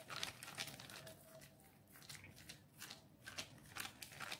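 Faint crinkling of an oiled plastic sheet in short, irregular crackles as fingers press and spread yam dough flat into a roti on it.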